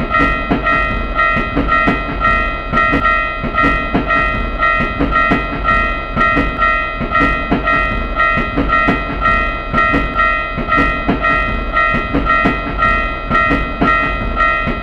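Japanese railroad crossing warning bell ringing in a steady, even clang, about one and a half strokes a second, over the rumble and wheel clatter of a passing train. It cuts off suddenly at the end.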